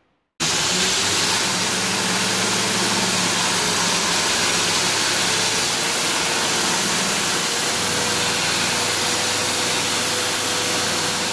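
2x72 belt grinder running with a forged steel knife blade pressed flat against the belt over the platen (linear grinding): a steady, loud grinding hiss over the motor's hum, throwing sparks. It starts abruptly just after the start.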